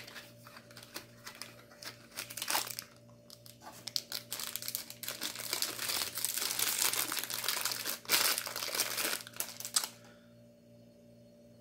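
Plastic packaging crinkling and tearing by hand as a silicone ice mold is unwrapped, in irregular bursts that grow louder in the second half and stop about ten seconds in.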